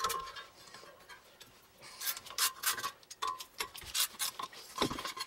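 Ratchet wrench clicking in short runs, with some metal scraping, as the 10 mm bolts holding a front brake dust shield are backed out. The clicking starts about two seconds in.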